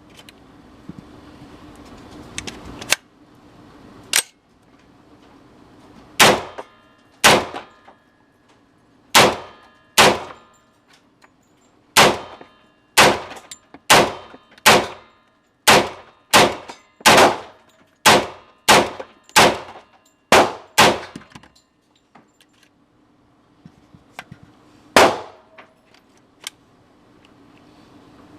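CMMG Banshee AR-pattern pistol fired in semi-automatic, about twenty single shots at uneven intervals. They come quickest, roughly one or two a second, through the middle stretch, then pause before one last shot near the end. Each report is sharp with a short metallic ringing tail.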